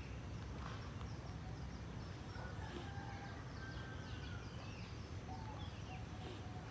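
Birds chirping and peeping in many short, high, falling notes, with a few longer, lower whistled notes in the second half, over a steady low outdoor rumble.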